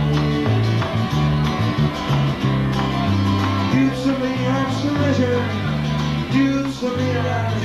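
Live folk band playing: strummed acoustic guitar over a bass guitar line that steps between notes, with a bodhrán frame drum.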